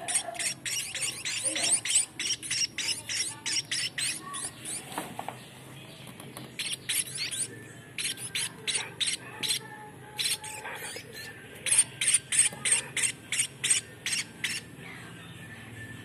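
Munia chicks giving rapid, shrill chip calls, about five a second, in three bursts with short pauses: the begging calls of hand-fed young birds.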